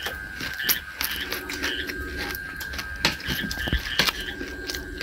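A person chewing fried fish with closed lips, with small wet mouth clicks. A steady high tone runs in the background, and a short low pitched sound repeats about every two seconds.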